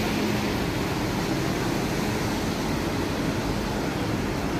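Steady, noisy city street din of traffic and the busy sidewalk: an even wash of noise with no distinct events standing out.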